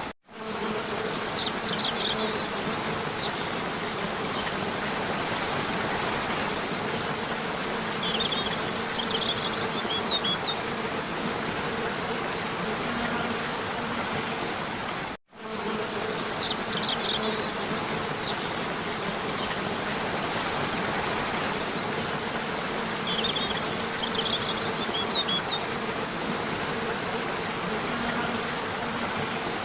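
Steady buzzing of insects with a low hum and a few clusters of short high chirps. The same 15-second stretch repeats after a brief dropout, as a looped recording.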